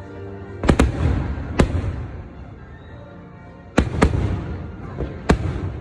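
Aerial fireworks shells bursting: about six sharp bangs in two clusters, each trailing off in a rumbling echo.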